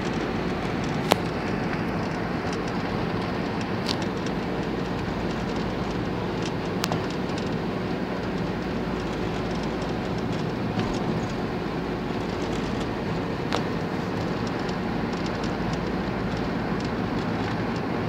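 Steady engine and road noise inside a moving van's cabin, a constant drone, with a sharp click about a second in and a few fainter clicks later.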